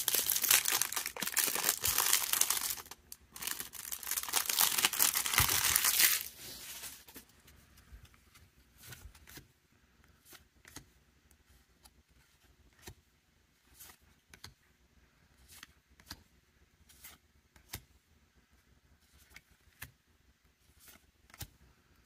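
Thin plastic wrapper on a pack of baseball cards being torn and crinkled open for about six seconds, with a short pause midway. Then faint, spaced clicks, about one or two a second, as cards are slid one at a time off the front of the stack.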